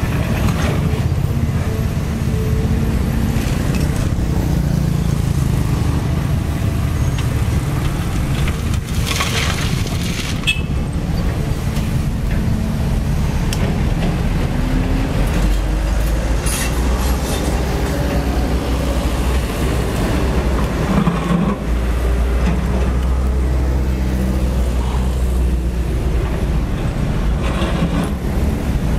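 Caterpillar 320D2 L excavator's diesel engine running steadily as the machine digs and swings through gravel, with a few short harsh noises a few seconds apart and passing road traffic beneath.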